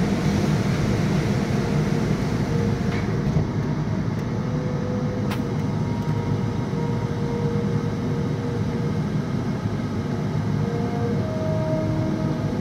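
Automatic tunnel car wash running: a steady mechanical rumble with water spraying, muffled inside a car's cabin.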